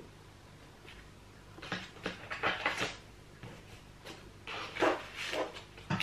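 Papers and a padded envelope being handled and sorted by hand, rustling and crinkling in two clusters of short bursts, about two seconds in and again near five seconds.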